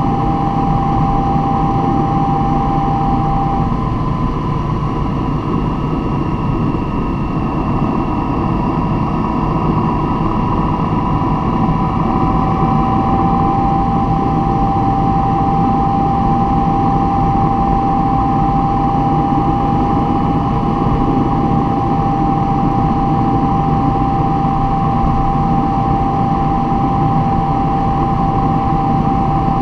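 Steady vehicle noise: a loud low rumble with a constant whine that shifts slightly in pitch a few times.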